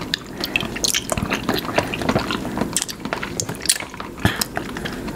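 Wet slurping and chewing as spoonfuls of a milky drink with konjac jelly pieces are sipped and eaten, in many short, irregular clicks and smacks.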